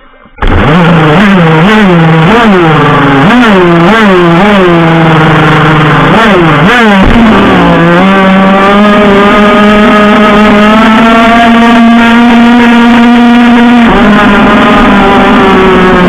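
Radio-controlled powerboat's engine, loud and close, revved in a series of short blips for about seven seconds. It then holds at steady high revs, with a slight drop in pitch near the end.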